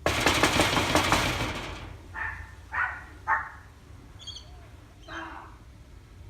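A loud, noisy rustle or knock lasting about a second and a half, then a few short, muffled yaps from Pomeranians behind the door: three quick ones, and one more near the end.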